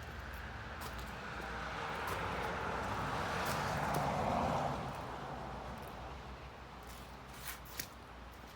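A vehicle passing by: its tyre and road noise swells to a peak about four seconds in, then fades away. A few light clicks come near the end.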